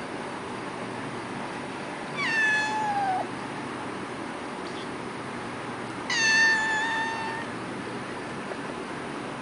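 Kitten meowing twice: a shorter meow that falls in pitch about two seconds in, then a longer, steadier one about six seconds in, over a steady hiss.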